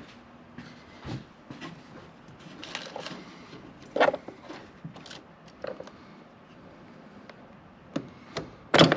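Scattered clicks and rustles of hand and tool work behind a car headlight, prying a small plastic clip loose, with the sharpest clicks about four seconds in and near the end.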